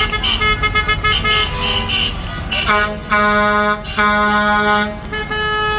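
Vehicle horns honking: a run of quick short toots, then two long, steady horn blasts about three and four seconds in, over the low rumble of passing vehicles.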